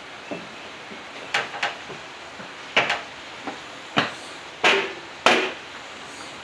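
About eight sharp knocks and bumps, irregularly spaced and loudest near the end, as a heavy 20 kW three-phase generator in a plastic carrying basket is hoisted onto a person's back and settled into place.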